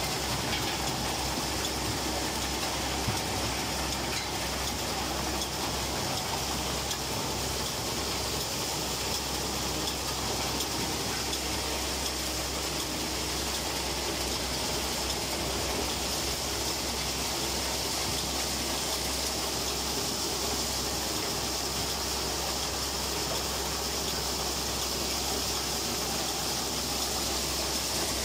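Dry bean harvester running steadily, a continuous even machine noise with a low hum as the cut bean plants are carried through its pickup.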